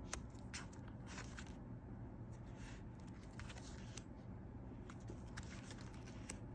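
Clear plastic sleeve pages of a photocard collect book being flipped: faint crinkles and light clicks at irregular moments, over a low steady hum.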